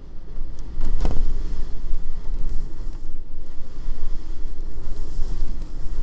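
Blizzard wind of around 120 km/h buffeting the microphone: a loud, gusty low rumble that strengthens about a second in. A single sharp knock or rattle comes at about the same moment.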